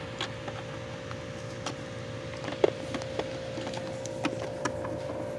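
Scattered light clicks and taps of a small plastic toy figurine being handled and knocked against a plastic playset, over a steady faint hum.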